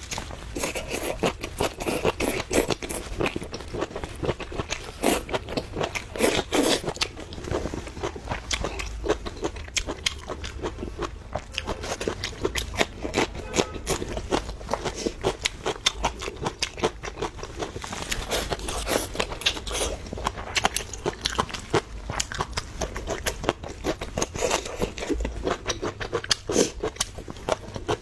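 A person chewing and biting food close to the microphone: a steady run of quick crunches and mouth clicks.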